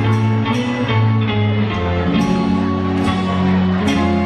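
Instrumental passage of a pop song played through a concert PA: guitar chords over sustained bass notes that change every second or two, with a light percussive stroke about twice a second.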